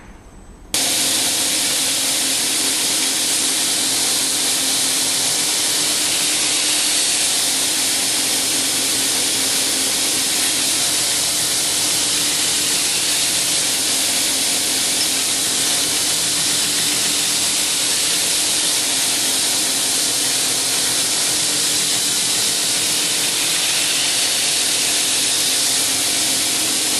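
Belt grinder with a 240-grit belt running steadily: a loud, even hiss over a faint motor hum. It comes in suddenly about a second in and holds unchanged.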